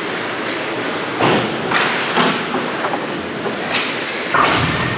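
Ice hockey play in an arena: skate blades scraping the ice under a steady hiss, broken by several sharp clacks of sticks and puck, with a heavier thud about four and a half seconds in.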